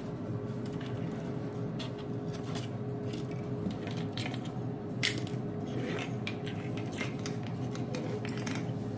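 Dry eggshells being picked off a stainless-steel sink edge and dropped into a woven basket: scattered light taps and crackles, one sharper click about five seconds in. A steady hum with a single held tone runs underneath.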